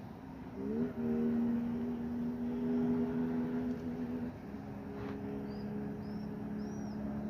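A motor's steady hum rises in pitch about a second in and then holds, with a single click about five seconds in. A small bird chirps several short high notes near the end.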